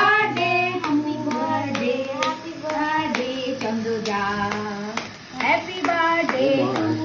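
People singing a birthday song together, with steady rhythmic hand clapping keeping time.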